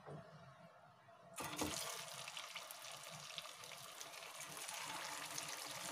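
Poha kachori deep-frying in hot oil in a pan: the oil starts sizzling suddenly about a second and a half in as the kachori goes in, then keeps up a steady sizzle with many small crackles.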